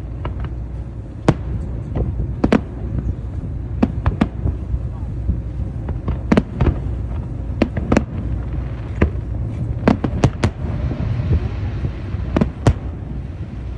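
Aerial fireworks bursting: about fifteen sharp bangs at uneven intervals, some in quick pairs, over a steady low rumble of shells.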